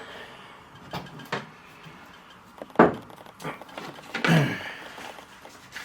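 A toolbox being opened and its contents handled: a couple of light clicks, a sharp knock about three seconds in, and a longer, duller thud a second or so later.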